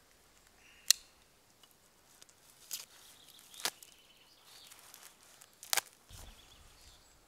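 Clear plastic parts bag of nuts and bolts being handled and opened: a few separate sharp clicks and crinkles, the loudest about a second in, and a soft low thump near the end.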